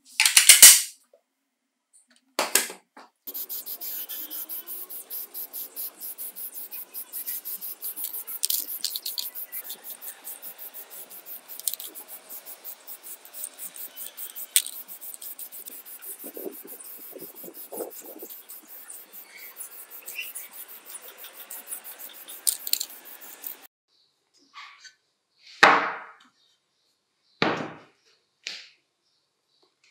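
Aerosol spray paint can hissing in a long run of short spurts as the aluminium drill housing is painted, for about twenty seconds. A sharp knock at the start and a few more near the end as the metal parts are set down on a wooden table.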